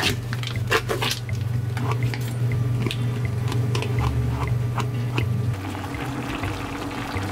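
Wet kitchen handling sounds: water and wet food being worked, with many small clicks and knocks.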